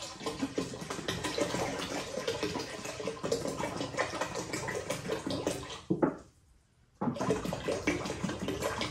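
Water pouring from a plastic gallon jug into a stainless steel brew pot that already holds a gallon of water. The pour breaks off for just under a second about six seconds in, then starts again.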